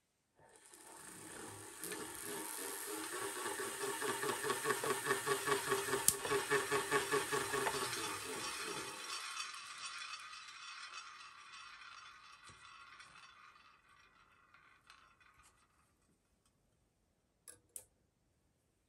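Antique Wimshurst machine being hand-cranked: its belt-driven discs spin up with a rattling, rhythmic whir of about four to five beats a second. After the cranking stops the whir fades away as the discs coast down. Two short clicks come near the end.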